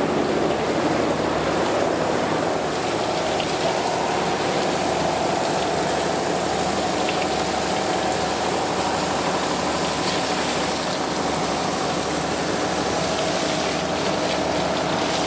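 A motor or engine running steadily with an even hum.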